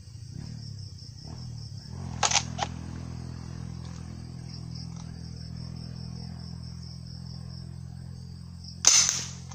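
Homemade PVC gas-powered pump-action shotgun: the pump is racked with two sharp clacks about two seconds in, then a single loud shot fires near the end. Insects chirp steadily underneath.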